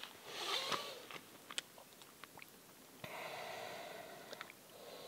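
Hands moving in shallow lake water at a rocky shoreline: soft splashing and trickling with a few small clicks, a little louder from about three seconds in.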